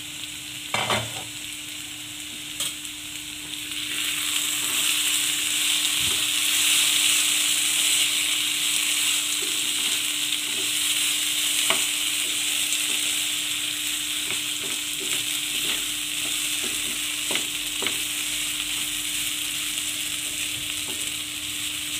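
Diced potatoes frying in oil in a non-stick pan on a low flame: a steady sizzle that grows louder about four seconds in. A spatula stirs them, with occasional scrapes and taps against the pan, over a steady low hum.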